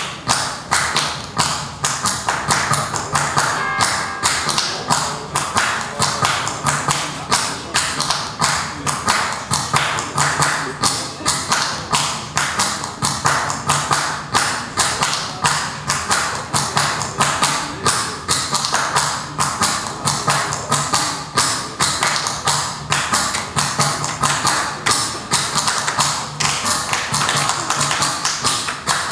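Rhythmic hand claps and taps made against a handheld microphone and amplified through loudspeakers: a steady, even beat of sharp smacks, about three to four a second, over a low steady hum.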